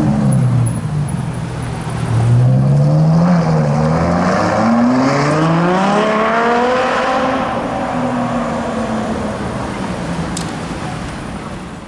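Mansory-tuned Ferrari 812 Superfast's V12 driving off, its pitch rising in two pulls with a short dip between, then holding steady and fading as it gets farther away.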